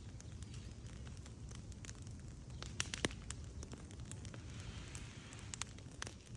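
Fire crackling: irregular sharp pops and snaps over a low steady rumble, with a few louder pops about three seconds in.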